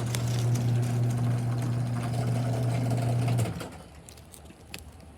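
Garage door opener motor running with a steady hum, which cuts off about three and a half seconds in; a few light clicks follow.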